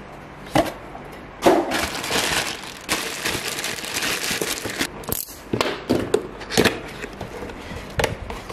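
Clear plastic packaging bags crinkling and rustling as they are handled, with several sharp crackles; near the end, cardboard box flaps are pulled open.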